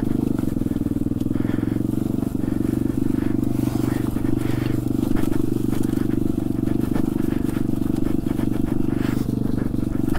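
Trailmaster TM29 pit bike's 125cc single-cylinder four-stroke engine running at a steady speed, with scattered light clicks and knocks over it.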